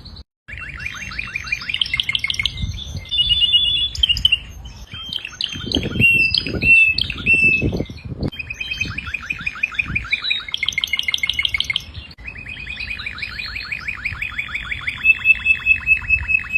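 Domestic canary singing: long, fast rolling trills and chirped phrases that change every second or two. The song breaks off briefly just after the start, and a few low thuds come around the middle.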